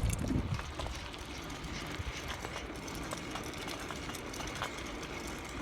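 Steady outdoor background noise: a low rumble and hiss with a few faint ticks.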